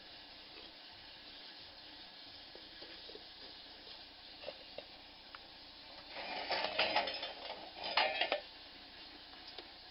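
Light clattering and clinking of the metal frame and parts of a homemade briquette press being handled, in two short bunches of rattles in the second half, over faint background hiss with a few small ticks.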